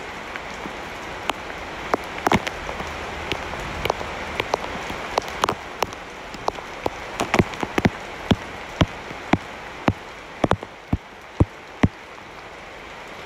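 Heavy rain falling with a steady hiss. Many large drops strike close by as sharp, irregular taps, loud above the hiss, and they come more thickly in the second half.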